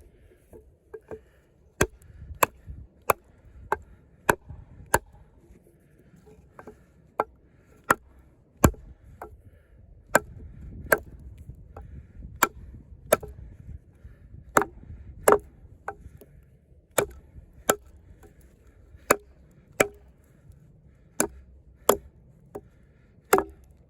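Heavy Sleipner-steel combat knife with a 6 mm thick blade chopping into a pressure-treated log: a steady run of sharp strikes, a little under two a second, the blade biting deep into the wood.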